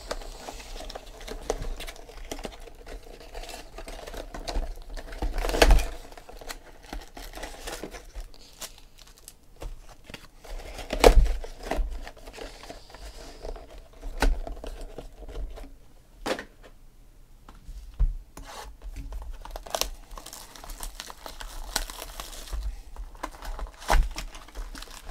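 Trading-card pack wrappers being torn open and crinkled by hand, with scattered sharp taps of cards and boxes on the table. Near the end, plastic wrap crinkles as a card box is unwrapped.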